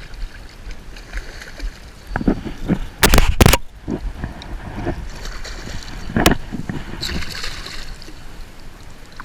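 Water splashing and sloshing as a hooked striped bass thrashes at the surface while it is brought in, with a loud burst about three seconds in and another about six seconds in.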